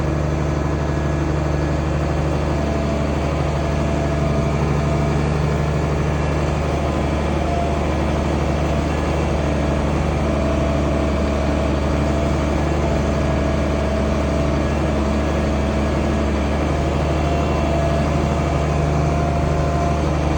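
International Harvester 1566 tractor's turbocharged six-cylinder diesel engine running steadily under even throttle, a low constant drone.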